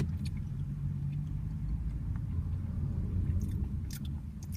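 Low, steady rumble of a car heard from inside the cabin, with a few faint clicks.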